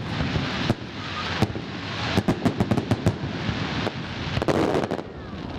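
Fireworks display: a rapid, irregular run of sharp bangs and crackling pops from bursting shells and ground fountains, over a steady rushing hiss.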